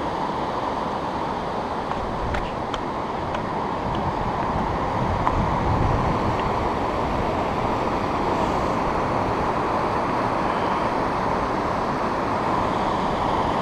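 Steady rush of whitewater rapids pouring over rock ledges, a continuous, even noise.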